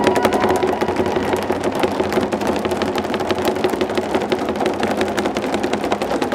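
Crowd applauding: dense, rapid, irregular clapping that holds steady.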